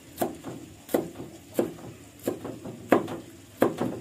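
Steel cleaver chopping red chilies on a thick round wooden chopping board: six sharp knocks of the blade into the wood, evenly spaced about two-thirds of a second apart.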